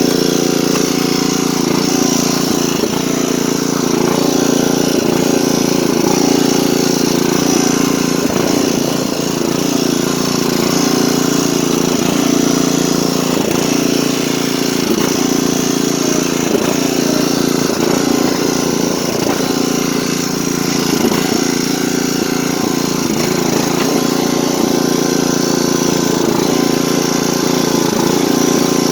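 1980s Craftsman riding lawn tractor's engine running steadily, being run to burn off the last of its fuel for winter storage.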